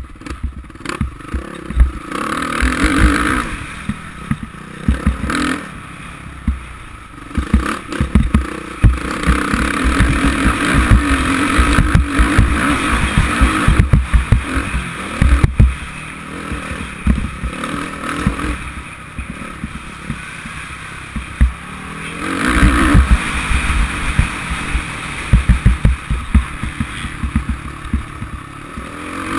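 Suzuki RM-Z450 four-stroke single-cylinder motocross engine on the move, revving up and backing off in several long surges as the bike is ridden over a rough dirt track. It is heard through a helmet-mounted GoPro, with many low thumps mixed in.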